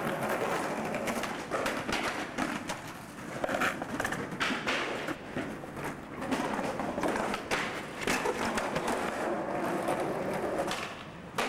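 Skateboard wheels rolling over rough city pavement: a continuous gritty rumble broken by frequent irregular clicks and knocks.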